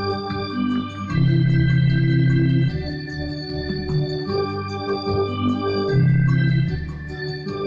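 Electronic keyboard played with an organ voice: sustained chords over held bass notes, with the bass notes louder about a second in and again about six seconds in.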